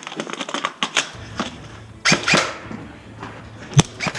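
Airsoft gunfire among the clatter of handled gear: a scatter of light clicks at first, then sharper shot-like snaps, two close together about two seconds in and one crisp crack near the end.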